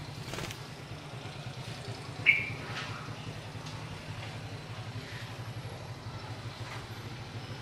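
A steady low mechanical hum with an even pulse, like a running engine. About two seconds in there is one short, sharp, high chirp from a bird.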